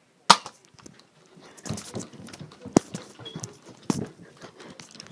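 A sharp knock, then a run of rustling, small clicks and knocks from a phone camera being handled and moved close to its microphone, with two more sharp knocks in the middle.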